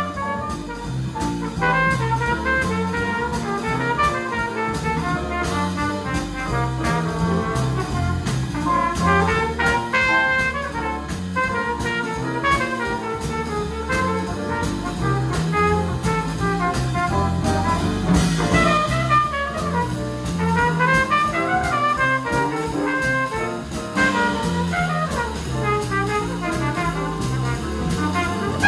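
Live small-band jazz: trumpet and saxophone lines over piano, electric bass and drums keeping a steady beat.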